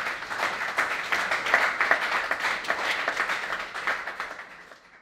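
Small audience applauding with many hands clapping, thinning out near the end.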